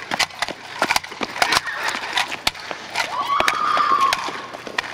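A quick, irregular string of sharp clicks and knocks, with a person's long yell about three seconds in.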